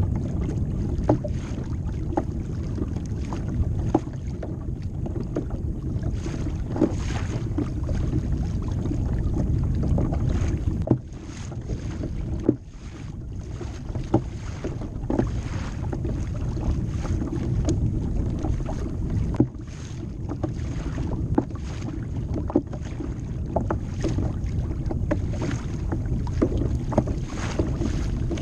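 Wind buffeting the microphone over water lapping and slapping against a plastic fishing kayak's hull in choppy water, with frequent small irregular knocks and splashes.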